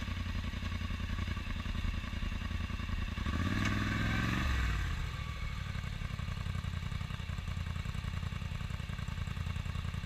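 ATV engine idling close to the microphone with a rapid, even pulse. About three seconds in, the engine note rises and falls briefly before settling back to idle.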